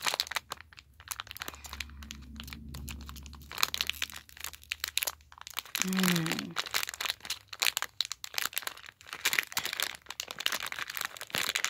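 LEGO Minifigures foil blind bag crinkling and crackling as it is squeezed and felt by hand, a fast irregular run of crinkles.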